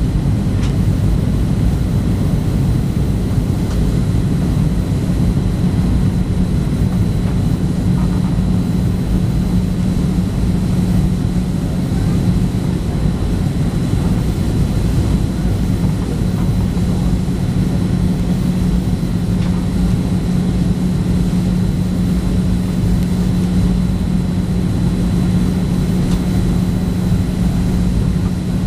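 Cabin noise inside a Boeing 737-700 on approach: the CFM56-7B turbofans' steady drone with a strong low hum and a faint high whine, over rushing airflow.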